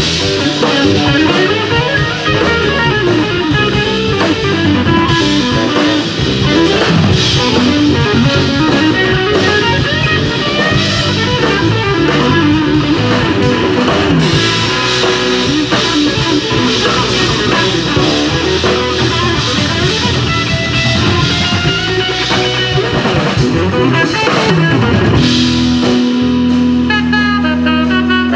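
Jazz band playing live: electric guitar carrying the lead over drum kit and bass guitar, with one low note held for about three seconds near the end.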